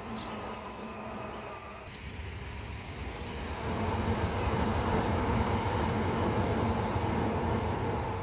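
Freight train with mostly empty container wagons rolling past, a steady rumble of wheels on rail with a few held squeal tones, growing louder about three and a half seconds in.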